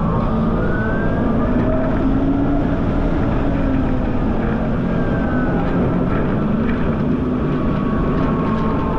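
Steady wind noise on the camera microphone of a moving Ryvid Anthem electric motorcycle, with faint whining tones that slowly rise and fall underneath.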